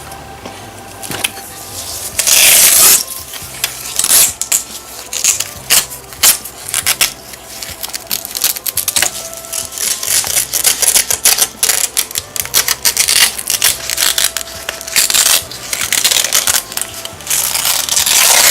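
Many quick, irregular clicks and rattles with a few louder bursts of rustling, over background music with a repeating bass line.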